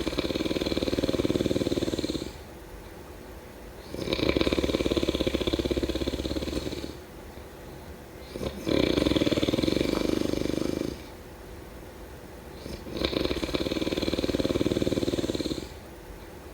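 A person snoring in a steady rhythm: four loud snores, each lasting about two and a half seconds and coming about every four seconds, with quieter breathing between them.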